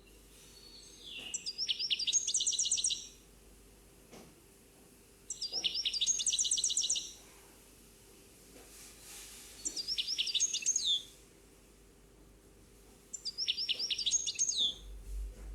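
A songbird singing in four short phrases, one about every four seconds. Each phrase is a few quick falling notes followed by a fast run of repeated high notes.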